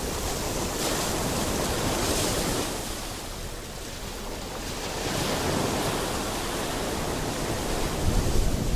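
Sea surf washing in, swelling and easing. Wind buffets the microphone near the end.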